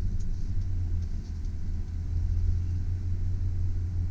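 2001 Chevrolet Silverado 2500 pickup's engine idling steadily with a low, even sound, freshly started without trouble.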